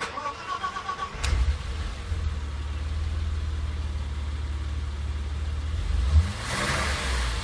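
BMW M20B20 inline-six engine started after a cylinder head repair: a click, about a second of starter cranking, then it catches and settles into a steady idle. Near the end a brief rise is followed by a broad hissing rush over the engine.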